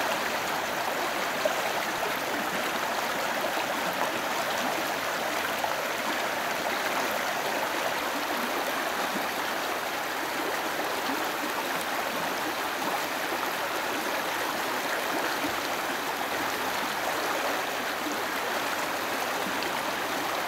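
Running water of a small stream, a steady, even rush with no let-up.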